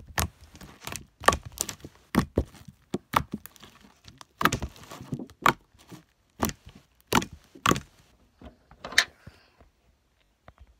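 Slime being squished and poked by hand, giving irregular sharp pops and clicks that stop about nine seconds in.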